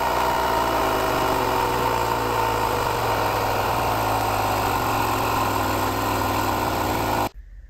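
AdoreTrip battery-powered portable air compressor running steadily, inflating a car tire, then cutting off suddenly near the end.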